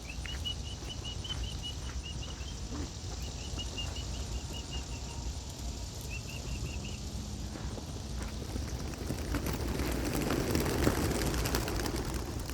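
A flock of young racing pigeons released together, their wings flapping in a dense clatter that builds over the last few seconds. Before that, a bird chirps in quick runs of short high notes.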